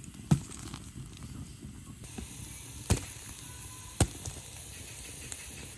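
Open cooking fire burning with a steady rushing hiss, being built up hot for roasting chilies and eggplant. It gives three sharp cracking pops: a loud one just after the start, then two more about three and four seconds in.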